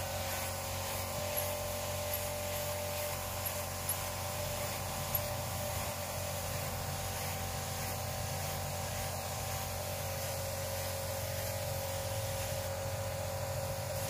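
A steady mechanical hum at an even level, with a few faint small clicks in the first half.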